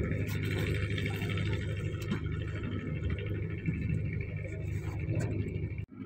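Steady low hum of the ship's machinery running, with a few faint ticks over it. The sound drops out briefly near the end.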